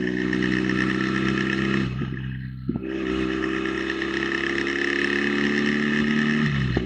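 Motorcycle engine running steadily at highway speed under a wide rush of wind noise; the revs dip briefly and pick up again about two seconds in and once more near the end.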